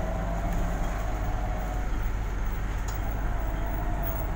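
City bus driving along, heard from inside the passenger cabin: a steady low rumble of road and drivetrain noise, with a faint whine that slowly drifts up and down in pitch.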